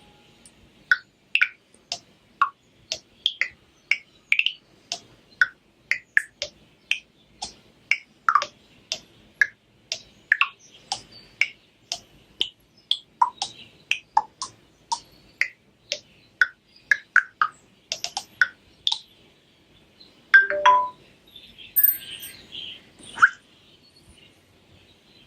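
Sharp Aquos Pad SH-08E tablet playing a bird-song ringtone: short chirps at changing pitches, about two a second, with a louder cluster of calls near the end.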